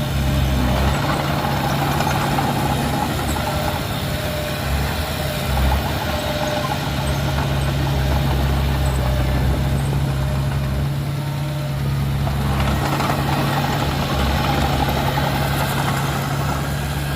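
Heavy diesel engine of earthmoving machinery running steadily at low revs, with a constant low hum.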